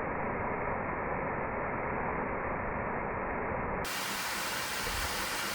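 Steady rushing water. About two-thirds of the way through it cuts to a brighter, hissier rush.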